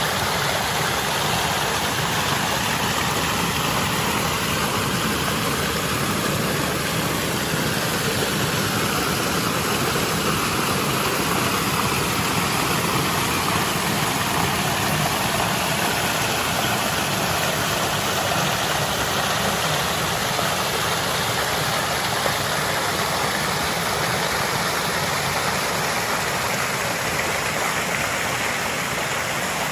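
Small waterfall pouring and splashing over mossy rocks into a stream, a steady, close rush of water.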